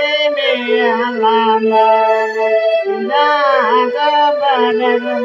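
A man singing a Santhali song in long held notes that bend and waver, over steady sustained chords from a Casio electronic keyboard.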